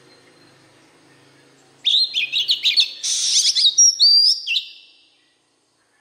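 Oriental magpie-robin singing a loud phrase of rapid whistled notes and sweeping trills, starting about two seconds in and lasting about three seconds.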